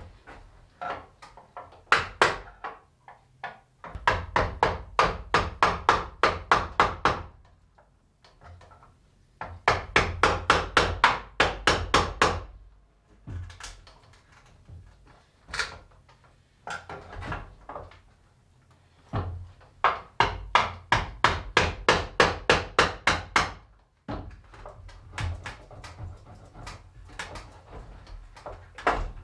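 Claw hammer striking an old chestnut wood table's frame in fast runs of blows, about four a second, with short pauses between the runs.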